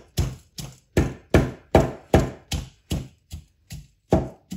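Pestle pounding ginger, garlic, chilies and whole spices in a heavy mortar, coarsely crushing them to a paste: a steady run of about a dozen strikes, nearly three a second, each fading quickly. The last strike falls about four seconds in.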